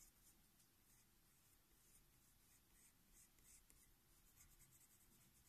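Faint scratching of a coloured pencil on paper: short, quick repeated strokes, a few a second.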